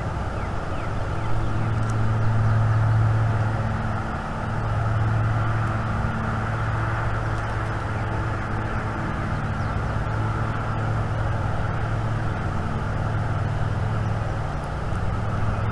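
Steady low hum of a distant engine, swelling a little louder and fading back several times, over a background hiss.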